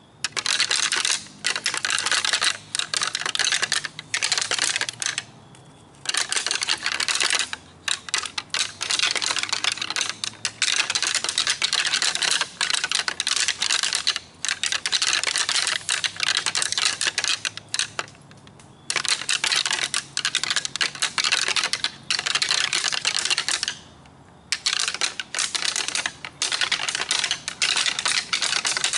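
A pair of deer rattling antlers being clashed and ground together by hand: rapid clattering and clicking in runs of several seconds with brief pauses between. It imitates two bucks sparring, a rut call to draw in a buck.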